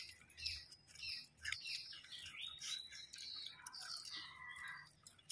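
Small birds chirping and calling, with many short, overlapping calls and quick pitch glides.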